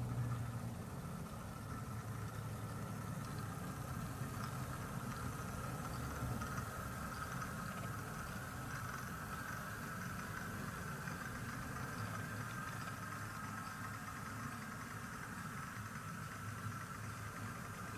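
Model railway locomotive running: a steady low hum with a steady higher whine over it.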